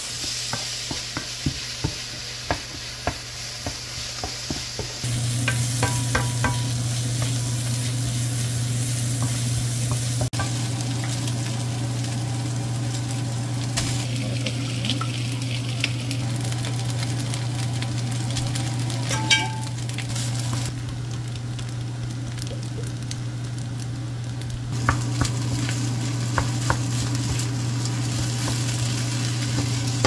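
Diced ham and vegetables sizzling in a nonstick wok while a wooden spatula stirs and scrapes them, with frequent light taps of utensils on the pan; cooked rice is then added and stir-fried in. A steady low hum comes in about five seconds in.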